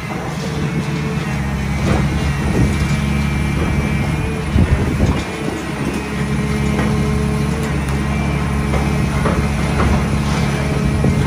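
Heavy demolition excavator's 16-litre diesel engine running steadily under load. Over it come scattered crunches and knocks of concrete breaking and falling as the high-reach attachment chews through the building's floors, with a louder cluster about halfway through.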